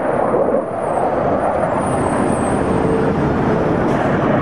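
A Boeing F/A-18 Hornet's twin jet engines at low altitude: a loud, steady rush of jet noise.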